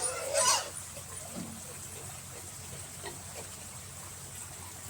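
Pigs squealing: two short, loud squeals right at the start.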